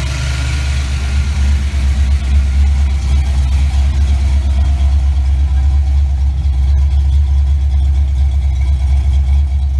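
Ford 5.0-litre (302) small-block V8 of a 1988 Mustang GT idling steadily and smoothly, running on its freshly installed wiring harness.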